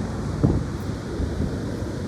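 Strong wind buffeting the microphone with a steady low rumble, and one sharper gust hitting it about half a second in.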